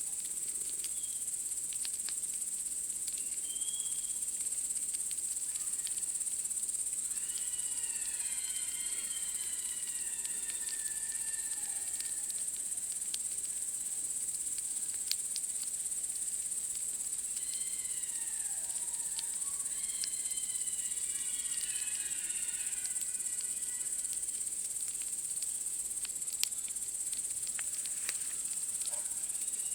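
A steady, high insect chorus of evening crickets, over scattered light crackles and a couple of sharper pops from a campfire. Twice, about seven and eighteen seconds in, a bird calls in a run of sliding whistled notes.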